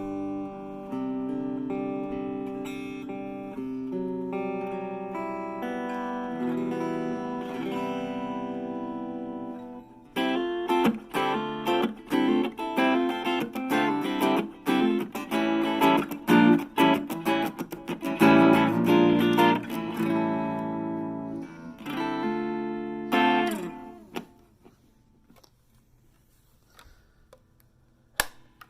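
Harley Benton CST24-HB electric guitar played through a Blackstar Fly 3 mini amp: ringing chords and picked notes for about ten seconds, then choppy strummed chords with short muted strokes. The playing stops about four seconds before the end, followed by a single click.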